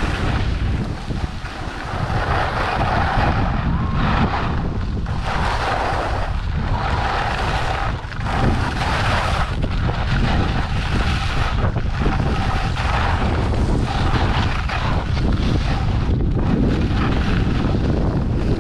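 Skis scraping and hissing over packed snow during a fast downhill run, swelling with each turn about every second, under a steady rumble of wind on the microphone.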